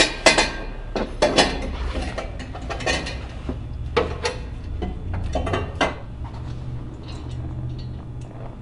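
Metal clanking and scraping as a stainless steel exhaust header pipe is worked into place inside a UTV's frame, in several bursts of knocks over the first six seconds, then quieter. A low steady hum lies underneath.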